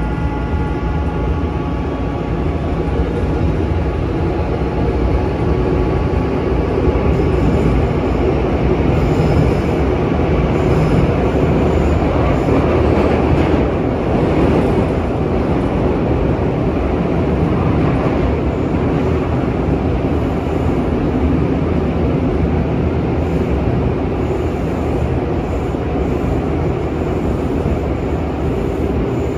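Seoul Subway Line 3 train running through a tunnel, heard from inside the carriage: a steady, loud rumble of wheels and running gear that swells towards the middle. A high whining tone fades out in the first few seconds.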